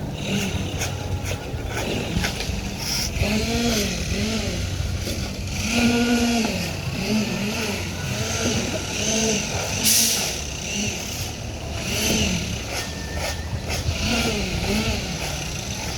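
Heavy construction machinery's diesel engine running steadily, with a melody of short rising-and-falling notes, like singing or music, over it.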